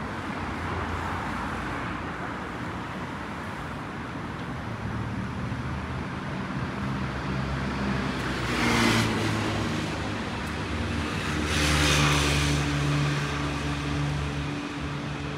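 City street traffic: car engines running and tyres on the road, with two vehicles passing close by, about nine and twelve seconds in.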